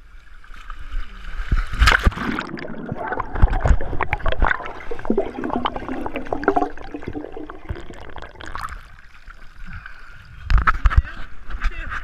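Water splashing in a swimming pool, starting about two seconds in. Then comes muffled underwater gurgling and bubbling while the microphone is below the surface, and splashing returns near the end as it comes back up.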